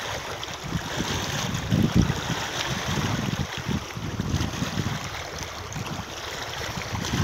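Small waves lapping against a rocky lakeshore, with wind buffeting the microphone in uneven gusts, strongest about two seconds in.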